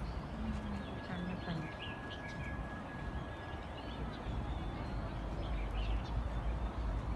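Outdoor ambience with birds chirping briefly now and then over a steady background noise, and a low rumble that grows stronger about halfway through.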